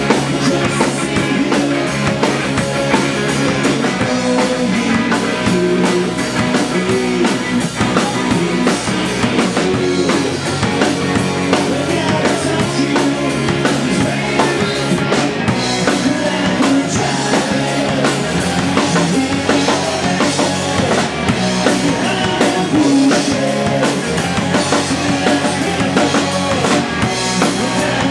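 Live rock band playing: a drum kit, bass guitar and guitar together, loud and without pause.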